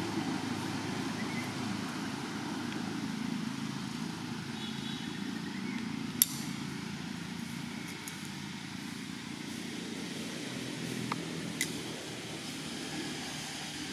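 Steady low outdoor background rumble, with a sharp click about six seconds in and two fainter clicks near the end.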